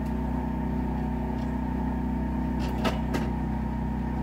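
A steady low mechanical hum throughout, with two sharp clicks about three seconds in, a fraction of a second apart, from shotshell reloading tools being worked.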